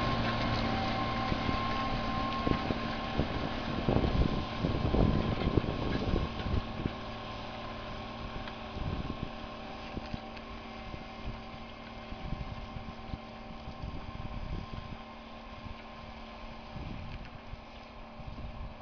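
MB Trac 1500's six-cylinder turbo diesel engine running steadily under ploughing load, gradually fading. Gusts of wind rumble on the microphone about four to six seconds in.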